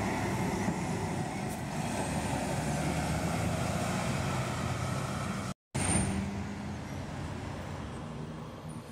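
Diesel intercity coach driving past close and pulling away, its engine running with a steady low drone. After a brief dropout about halfway through, a second coach's diesel engine is heard, fading slightly toward the end.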